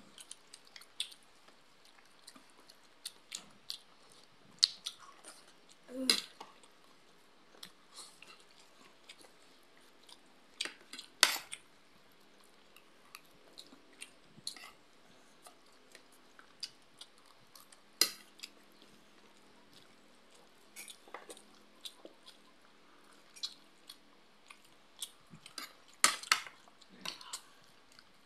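Chewing and mouth noises of people eating rice and pork, with scattered short clicks and scrapes of a spoon against plates. A few sharper clinks or smacks stand out among the quieter ones.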